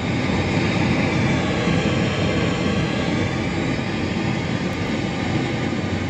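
Panasonic SD-84 radio-phonograph's amplifier putting out a loud, steady hiss through its speaker with the volume turned up. This is the white-noise fault that the owner suspects comes from two leaky transistors.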